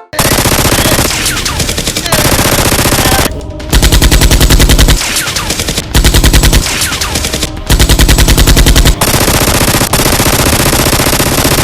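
Long, rapid bursts of automatic machine-gun fire, very loud. The fire comes in several runs, with three shorter bursts of heavier, bass-laden shots in the middle.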